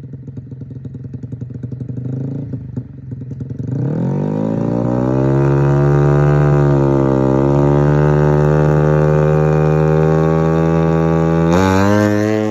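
Yamaha MX King single-cylinder motorcycle engine running unevenly at low revs, then revved up about four seconds in and held at high revs with a brief dip. A different sound cuts in suddenly near the end.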